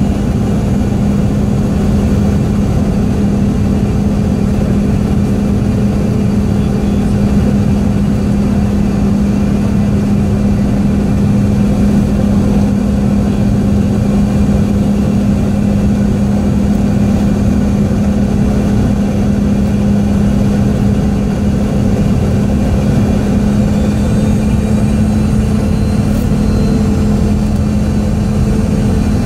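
Cabin noise of a Boeing 717-200 on approach: a steady rush of airflow and the rear-mounted Rolls-Royce BR715 turbofans, with a constant low hum.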